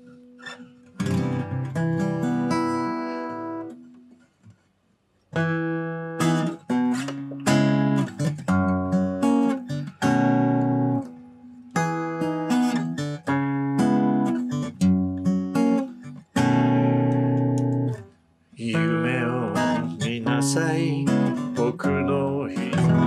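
Steel-string acoustic guitar, freshly restrung with new strings, played as strummed chords and picked notes. It breaks off briefly a couple of times.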